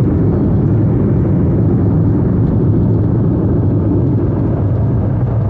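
Steady, loud low rumble inside an airliner cabin as the plane rolls on the ground after landing: jet engine noise mixed with the rumble of the airframe.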